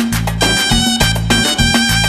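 Background music: an upbeat Latin dance track with brass over a steady, pulsing bass beat.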